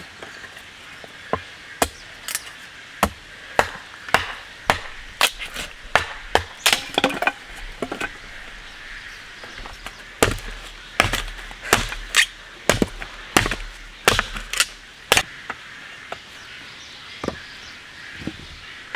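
Repeated sharp knocks, each a short crack, in irregular runs of about two a second, loudest and densest in the second half, over a steady hiss.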